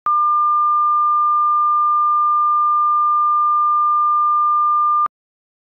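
Broadcast line-up test tone played with colour bars: a single steady pure tone near 1 kHz, held for about five seconds and then cut off abruptly.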